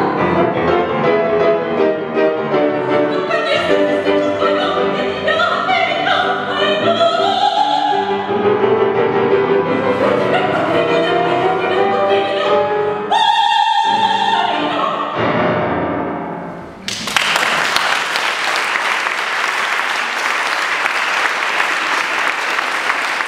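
Mezzo-soprano singing a Russian art song with grand piano accompaniment, ending on a held high note about thirteen seconds in, followed by a brief piano close. Audience applause breaks out about seventeen seconds in and continues to the end.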